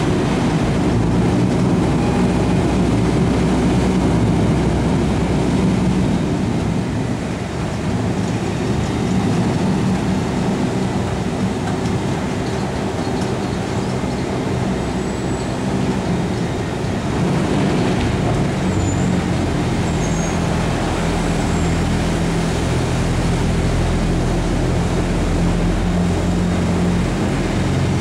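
Bucyrus-Erie 1250 walking dragline walking: a loud, steady heavy-machinery drone with a low hum. The hum deepens and strengthens about two-thirds of the way through.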